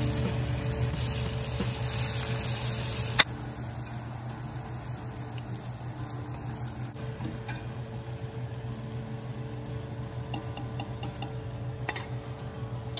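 Flour-coated okra deep-frying in a saucepan of hot oil: a steady crackling sizzle, louder for the first three seconds and quieter after, with a few light clinks of a metal spoon against the pan near the end.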